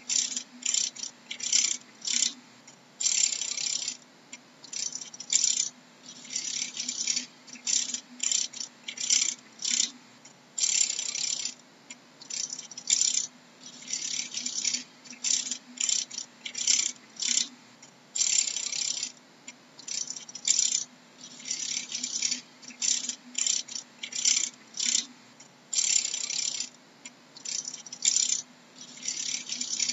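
Dragonfly wings rattling in short, dry, high bursts, irregularly spaced at about one to two a second, some lasting up to a second, over a faint steady low hum.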